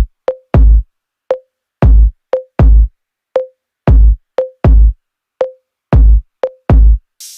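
Background electronic music: a sparse drum-machine beat of deep kick drums alternating with short pitched blips, and a brief hiss near the end.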